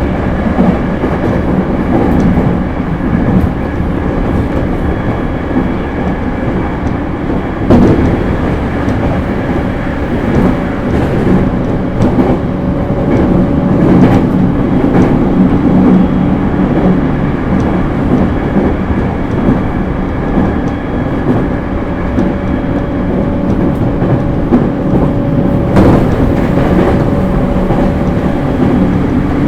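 A JR East E231 series suburban electric train running at speed: a steady wheel-and-rail rumble with a faint steady whine. A few sharp clacks come over rail joints, about 8, 14 and 26 seconds in.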